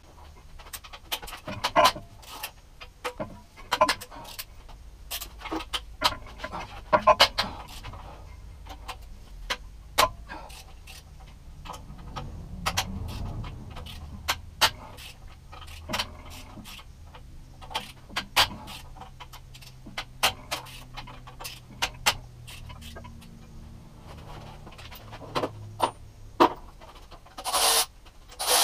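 Hand tools and loose metal parts clinking and knocking on a bare Toyota 1UZ-FE V8 cylinder head during teardown: scattered sharp clicks and clanks, irregularly spaced, with a couple of short hissing bursts near the end.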